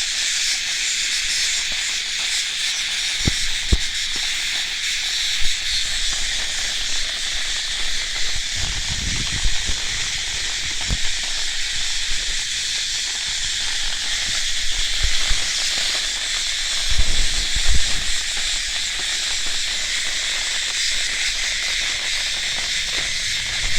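Cicada buzzing: a steady, unbroken high-pitched drone. A few low thumps break in here and there.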